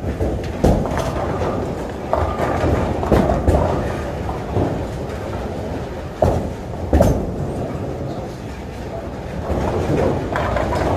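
Bowling balls rolling down the lanes with a steady low rumble, and the sharp crashes of pins being struck, a few of them, the loudest about a second in and again around six and seven seconds in.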